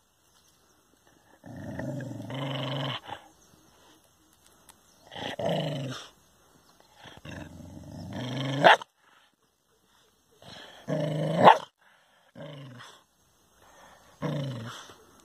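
Dog growling at its own reflection in a mirror, taking it for another dog. It comes in about six separate bouts of growling, two of which rise to a sharp, loud bark.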